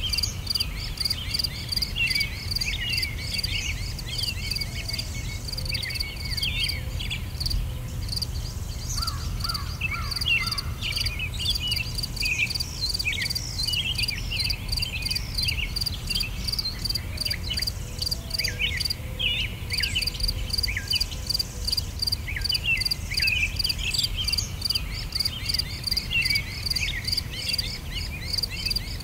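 Natural ambience of insects, crickets by their sound, trilling in rapid even pulses, with birds chirping in short rising and falling calls over a steady low rumble.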